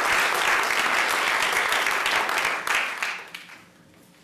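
Theatre audience applauding, the clapping tapering off and dying away about three seconds in.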